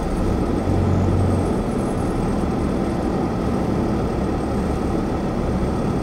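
Steady engine and road noise heard inside a car driving at low speed, with a low hum that swells for about a second near the start.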